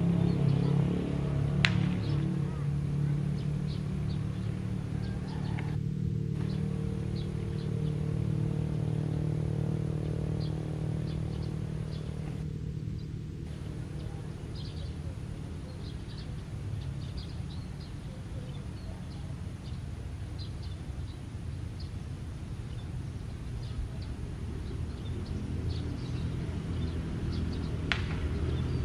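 Diesel-electric locomotive engine running with a steady low drone during a shunting move, easing a little in level about halfway through. A sharp click comes about two seconds in and another near the end.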